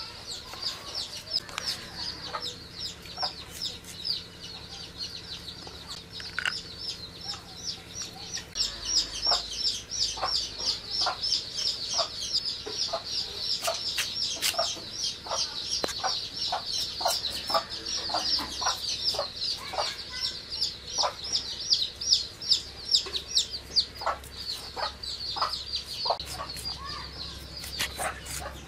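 Chickens clucking with a dense, continuous run of rapid high chirps, over short sharp clicks and cuts as vegetables are sliced and peeled on a boti's curved iron blade.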